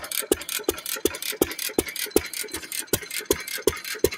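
1917 Fairbanks Morse Model Z 3 hp throttle-governed single-cylinder engine running steadily on gasoline and firing every revolution: even, sharp exhaust beats about three times a second, with lighter mechanical clicks between them.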